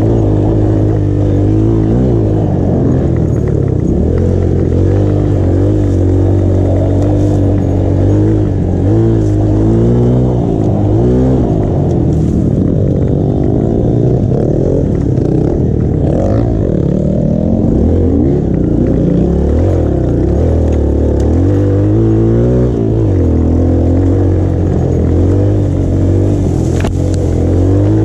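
Dirt bike engine running and revving up and down over and over with the throttle while riding a rough trail, heard close from the rider's helmet camera.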